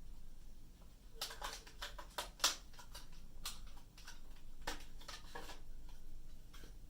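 Light clicks, taps and rustles from a 250 GB solid-state drive and the Akai Force's drive tray being handled and fitted. The clicks come in a cluster between about one and two and a half seconds in and again around five seconds, over a faint steady hum.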